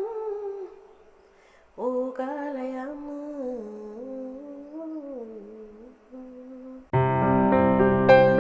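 A woman singing an Igorot uggayam chant unaccompanied: she holds the closing note of the word "uggayam", then sings a long wavering wordless phrase. About seven seconds in, keyboard music with sustained piano chords starts.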